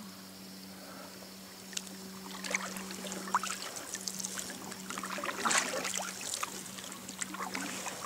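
Small splashes and drips of water around a kayak, scattered and irregular, beginning about two seconds in, over a steady low hum.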